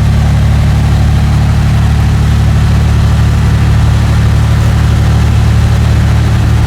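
Fishing charter boat's engines running steadily under way: a loud, even low drone with a constant hiss of wind and water over it.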